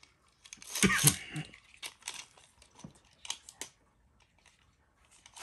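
Crinkling plastic packaging and light clicks of small plastic parts being handled, mostly in the first three or four seconds, then quiet.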